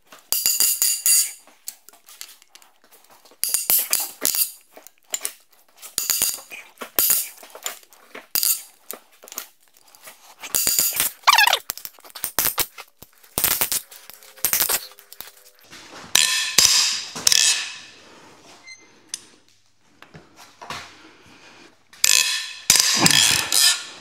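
Cylinder head bolts on a Hyundai Elantra engine being broken loose one after another with a long breaker bar. The result is a string of sharp metallic clinks and cracks with a short ring after each, every second or two, and one brief falling creak about eleven seconds in.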